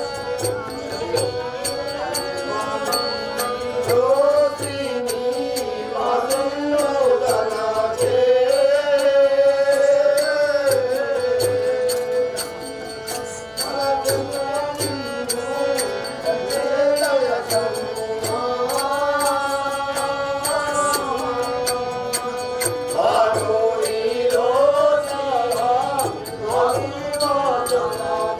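A voice singing a devotional verse in a chant-like, Carnatic-style melody, its pitch bending and wavering, over a steady held drone note, with faint regular beats underneath.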